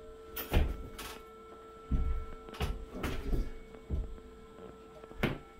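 Irregular knocks, clunks and dull thuds as a granite countertop slab on a wheeled installation cart is pushed forward a little at a time, over a steady hum.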